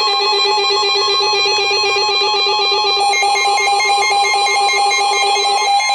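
Emergency Alert System attention tones: a loud, steady electronic alert tone, overlaid by a lower, rapidly pulsing alert tone that cuts off shortly before the end.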